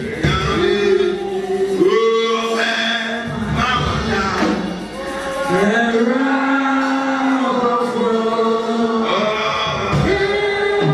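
Worship song sung by male voices, with long held notes that slide between pitches.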